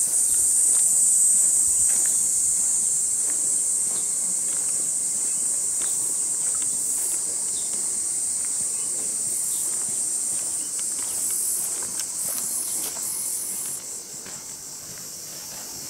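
A steady, high-pitched chorus of summer insects shrilling, dropping a little in level near the end.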